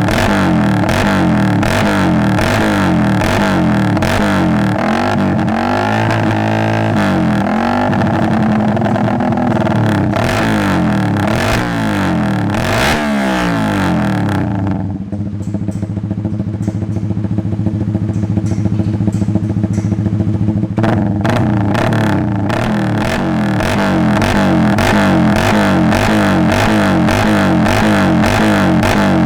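Suzuki GSX-R150 single-cylinder engine through an Arrow aftermarket exhaust, revved up and down over and over. For several seconds past the middle it drops to a steadier, duller note, then the revving picks up again.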